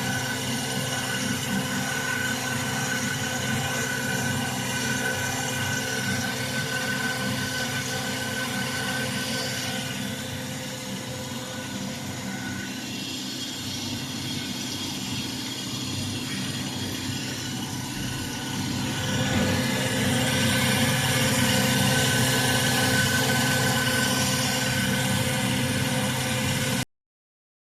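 Diamond wire loop saw running while cutting ceramic: a steady motor hum with a high hiss and steady whining tones from the moving wire. It grows louder about two-thirds of the way through and cuts off suddenly near the end.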